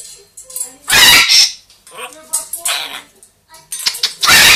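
Pet parrot giving loud, harsh calls: three big squawks about a second and a half apart, with smaller chirps and squeaks between them.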